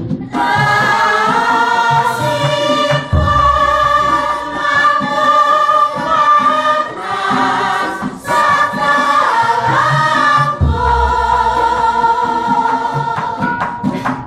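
A large mixed group of men and women singing Javanese tembang together in palaran style, holding long notes that bend slowly, with short breaths between phrases. A deep gong stroke sounds about 3 seconds in and again about 10 seconds in.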